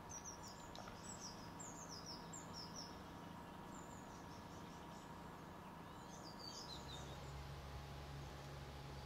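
Small songbirds chirping faintly in quick runs of short, high, falling notes, over a low steady rumble of background noise that grows louder about three-quarters of the way through.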